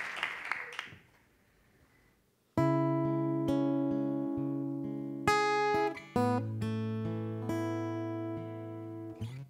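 The last of the applause dies away, then after a short hush, an acoustic guitar starts strumming the song's intro: full chords that ring on and change every second or two.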